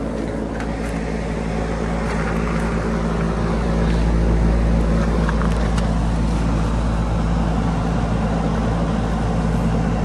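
Outdoor heat pump units running in heat mode: a steady mechanical hum of the condenser fan and compressor, with a low rumble under it that swells slightly about four seconds in.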